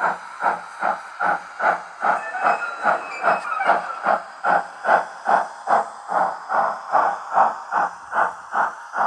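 Sound-equipped O gauge model of the LMS Black Five 'Eric Treacy' playing its steam exhaust effect: an even beat of chuffs, about two and a half a second, with a steady hiss beneath.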